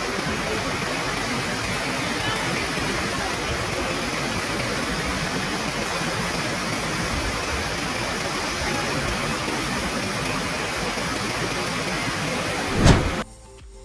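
Steady, even rush of fast-flowing monsoon water at a waterfall. Near the end comes one loud thump, after which the sound cuts off suddenly.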